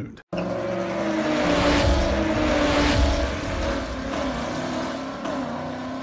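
Car engine running and revving, its pitch shifting slowly, with two swells of louder noise about two and three seconds in.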